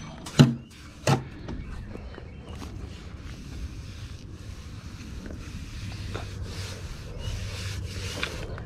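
Two sharp knocks about a second apart as a coping stone is worked down in its mortar bed, the first one louder, then a steady low noise with a few light ticks.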